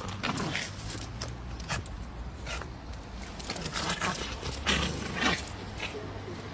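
Two dogs tussling: short scuffing sounds and a few brief dog grunts over a steady low rumble, as a small terrier tugs at a large black dog.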